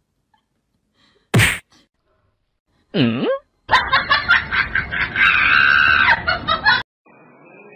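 A sharp slap about one and a half seconds in. Then a short 'ooh' that dips and rises in pitch, and about three seconds of laughter. Faint music starts near the end.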